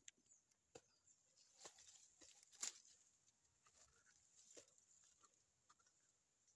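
Faint, scattered crunching and scraping clicks of teeth gnawing the bark off a small tree trunk. The loudest crack comes about two and a half seconds in.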